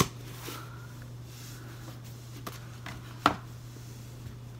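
Objects being handled while rummaging in a box for the next item: a sharp knock right at the start and another about three seconds in, with a couple of faint taps between, over a steady low hum.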